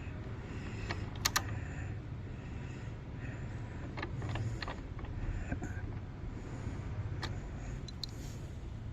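Scattered sharp clicks and taps, with two loud ones close together about a second in, over a steady low hum.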